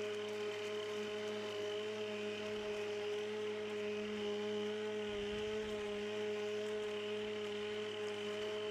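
Battery-electric lawnmower motor running at a steady speed, giving a constant whine of several held tones over a light whirr.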